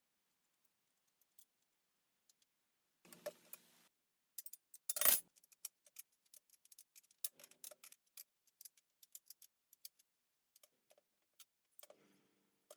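Irregular small clicks and taps, with a short scraping rustle about three seconds in and a sharper, louder click about five seconds in.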